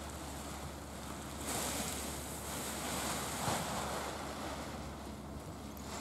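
Strong, gusty wind buffeting the microphone: a steady rushing noise that swells a couple of times as gusts hit.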